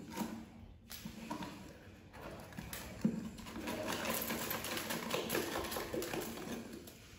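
Rolled-up paper banknotes being shaken out of a cut-open plastic coin bank, rustling and dropping onto a pile of notes and coins on a tiled floor. A sharp knock about three seconds in, then the rustling thickens.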